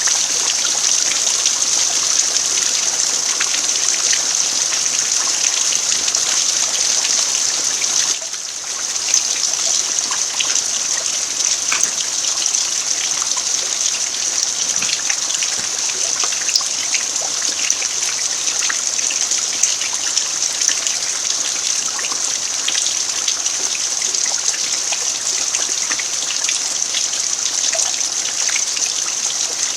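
Steady rain falling on a dirt yard: a dense, even hiss with many individual drops ticking through it. It goes briefly quieter about eight seconds in.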